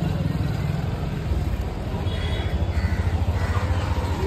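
Street-market background: a steady low rumble, with a few short, higher calls about halfway through.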